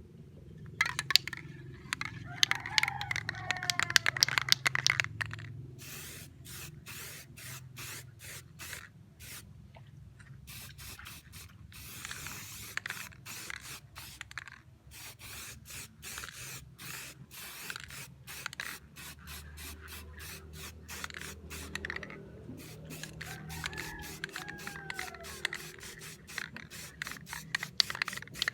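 Aerosol spray-paint can hissing in many short, repeated bursts, as an exhaust pipe is painted. A few faint gliding whistles sound near the start and again near the end.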